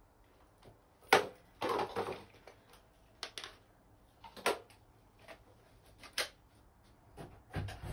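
A handful of faint, irregular knocks and clicks with a short scraping stretch about two seconds in, and quiet between them.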